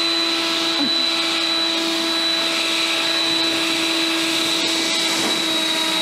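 A 60-volt cordless electric leaf blower running flat out, with a steady motor whine over the rush of air as it blows snow off a car.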